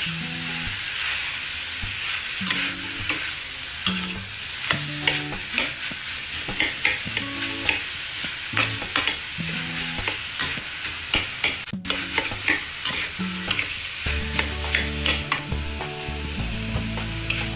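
Ground pork with diced potato and carrot sizzling steadily in a stainless steel pan, stirred and scraped with a spatula, giving frequent short scrapes and clinks against the pan.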